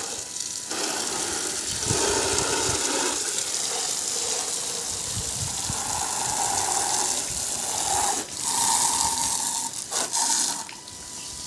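A stream of water from an electric pump splashing and hissing onto a motorcycle as it is washed, its tone shifting as the jet moves over the bike, with brief breaks near the end.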